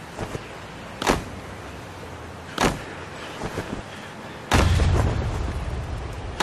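Three sharp, heavy percussive hits about one and a half to two seconds apart, with a few softer clicks between them. The third hit, about four and a half seconds in, opens into a deep booming rumble that slowly fades.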